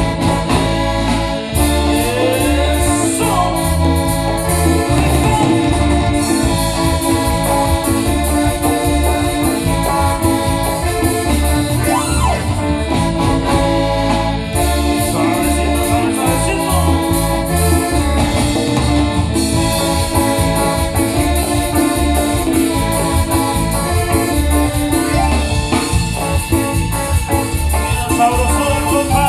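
A regional Mexican dance band playing live: an instrumental stretch led by a keyboard with an accordion- or organ-like sound, over bass and drums keeping a steady dance beat.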